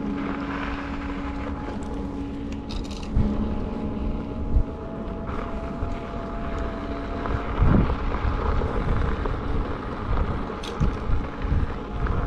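Wind on the microphone and tyre noise from an electric unicycle rolling over a gravel dirt road. A faint steady whine from its hub motor rises slightly in pitch midway, and a few jolts from bumps come through, the biggest about two-thirds of the way through.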